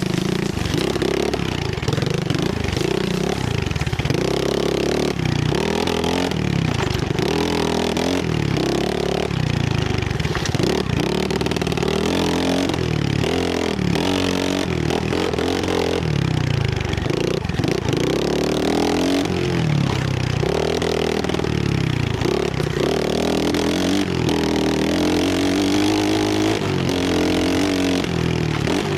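Trailmaster 125cc pit bike engine revving up and down over and over as it is ridden hard through the trails, its pitch rising and falling every second or two.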